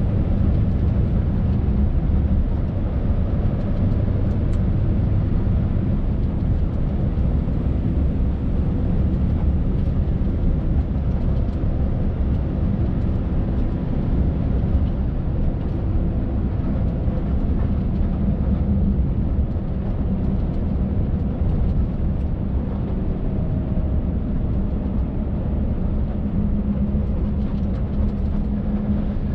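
Scania R580's V8 diesel engine running steadily under way, heard inside the truck cab, with road noise over a low, even hum that grows a little stronger near the end.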